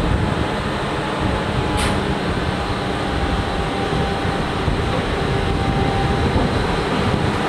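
SNCF BB 22200-class electric locomotive pulling away with its train, a steady running noise with a faint thin whine. A brief high squeak comes about two seconds in.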